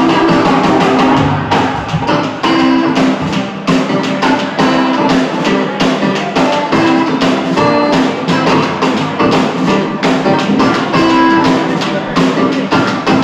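A live drum-and-keyboard duo playing: keyboards hold sustained notes over busy drum kit playing with frequent cymbal and drum hits.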